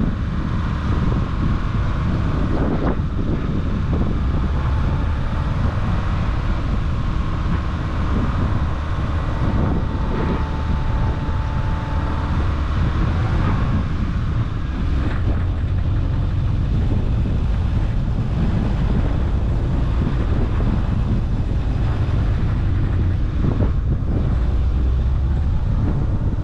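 Car driving along a road: steady engine and tyre noise with wind rushing past.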